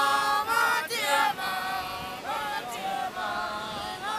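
A group of voices singing together in harmony, several parts at different pitches at once, in phrases.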